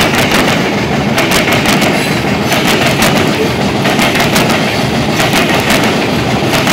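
Freight train of CSX coal hopper cars rolling across a railroad diamond, the steel wheels banging over the crossing's gaps in a rapid, irregular clatter.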